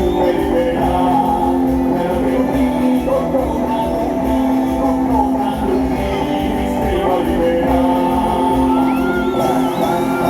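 Loud recorded music with singing, with occasional shouts and whoops from a crowd.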